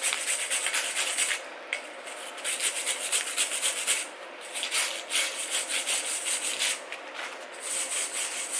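Metal being scraped by hand in quick back-and-forth strokes, in bursts of a second or so with short pauses, working excess weld off a bolt welded in an engine block.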